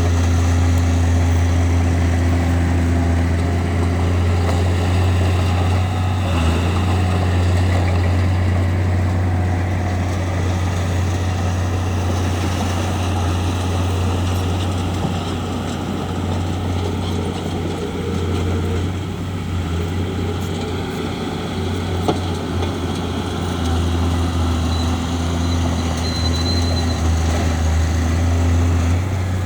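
Bulldozer's diesel engine running steadily under load, a deep constant hum that eases slightly midway and then picks up again.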